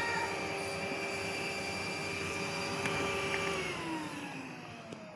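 Numatic Henry Micro vacuum cleaner's single-speed motor running with a steady whine. About three and a half seconds in it is switched off, and the whine falls in pitch and fades as the motor winds down.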